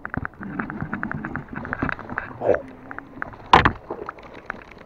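Quick clicking and rattling from a Shimano Caenan baitcasting reel being handled, with one sharp knock about three and a half seconds in.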